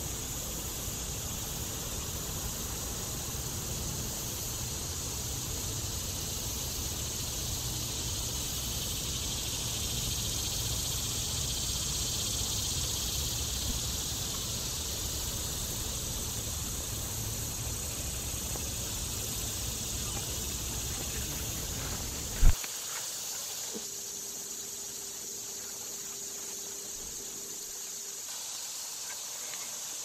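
A steady high-pitched insect chorus under a low outdoor rumble. About two-thirds of the way through, a single sharp thump cuts the rumble off, and the insect drone carries on with a faint steady hum for a few seconds.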